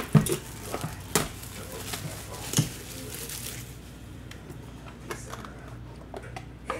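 Cardboard trading-card hobby box being handled and opened on a table: a few sharp knocks and taps in the first three seconds, with cardboard rubbing and sliding.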